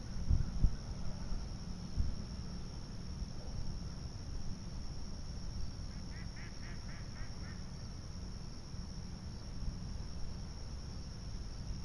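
Steady high insect drone with wind rumbling on the microphone; about six seconds in, a bird gives a quick run of about six calls.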